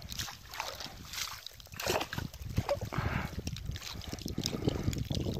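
Water splashing and sloshing in irregular bursts as a cast net is hauled up out of a river.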